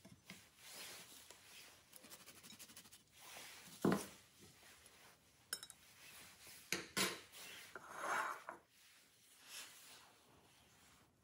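Quiet kitchen handling of a ladle, frying pan and ceramic pasta bowl: scattered clinks and scrapes, with a sharp knock about four seconds in and a longer scrape as the bowl is moved on the counter near the end.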